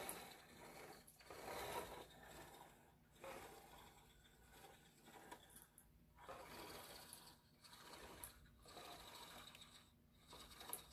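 Chasing E-Reel tether winder's spool mechanism turning as yellow tether pays out: a faint mechanical whirring in short stretches with brief pauses between them.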